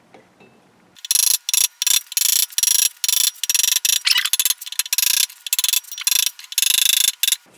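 Ratchet wrench clicking in quick, choppy back-and-forth strokes, starting about a second in, working a puller to draw a tight pulley off a countershaft.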